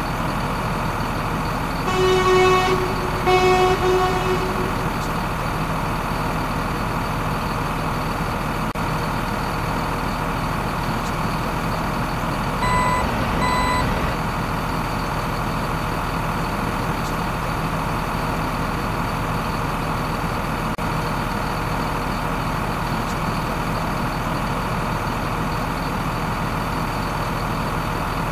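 Dubbed truck sound effects: a heavy truck engine running steadily, with two horn toots about two seconds in and two short reversing beeps near the middle.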